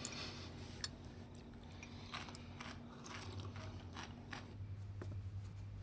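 Faint scattered clicks and light rustles of small handling movements over a low steady hum.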